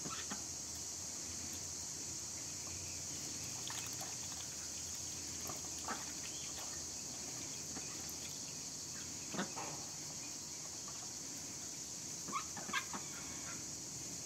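Ducks and hens feeding on chopped zucchini on bare ground: a scatter of short sharp pecking sounds and a few brief clucks, over a steady high hiss.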